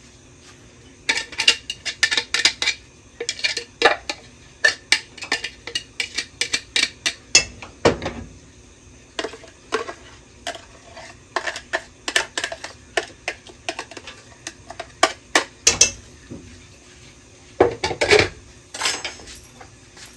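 A knife scraping and tapping chopped masala out of a plastic chopper bowl into a stainless steel pot: many quick, irregular clinks and knocks in clusters, with a short pause before a last burst.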